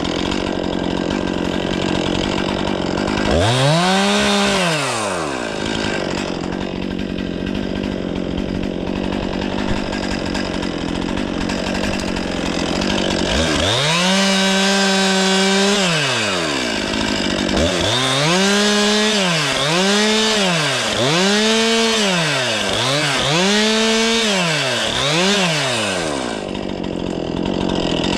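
Stihl 500i chainsaw idling between throttle bursts: one short rev, then a longer run held at full throttle, then a quick series of about six revs up and back down, each rise and fall plain in the engine's pitch.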